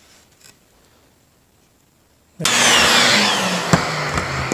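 A few light handling clicks, then about two and a half seconds in a loud rushing noise from a workshop machine starts abruptly, with a faint falling whine in it.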